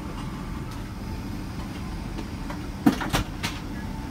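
Steady low drone of a Boeing 777-200LR airliner cabin in flight. About three seconds in, three quick crackling snaps of a paper menu page being turned.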